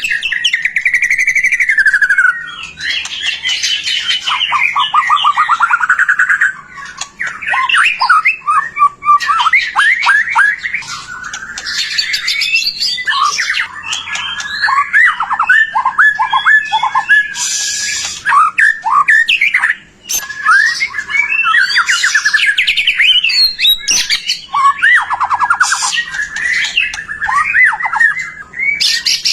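White-rumped shama singing loudly in full song ("gacor"): a long, varied run of rapid trills, sweeping whistles and fast repeated notes, with a short break about two-thirds of the way through.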